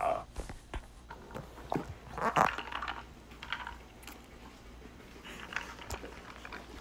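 Scattered short clinks and rustles of ice cubes in a drinking glass, handled close to the microphone. The loudest rustle comes about two and a half seconds in.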